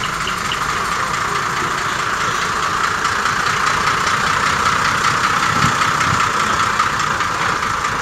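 Large diesel truck engine idling steadily, a little louder in the middle of the stretch.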